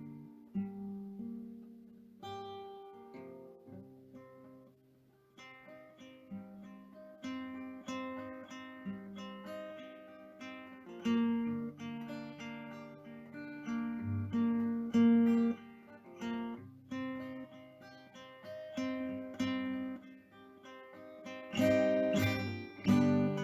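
Background music: acoustic guitar, plucked and strummed, with a quieter passage a few seconds in.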